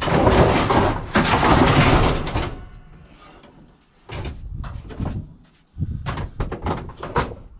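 Scrap metal being handled: two long scraping noises, then a run of knocks and rattles from about four seconds in.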